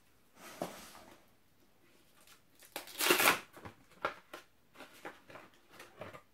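Plastic dog-treat pouch crinkling and rustling as it is torn open and pulled apart by hand, with a loud crackle about three seconds in and smaller crinkles after.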